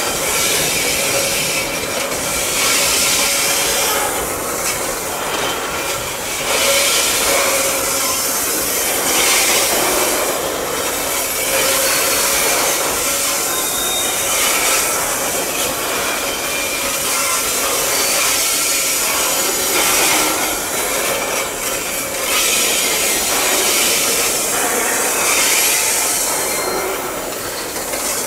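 Loaded steel coal wagons of a long freight train rolling slowly past close by, their wheels grinding and squealing on the rails. It is a steady scraping, rubbing noise that swells and eases every few seconds.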